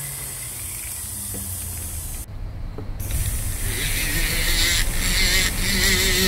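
Rotary tool running on a silver ring: a steady motor hum with a light bur in the stone seat, then from about three and a half seconds in a louder, hissing grind as a sanding drum works the ring's outer band.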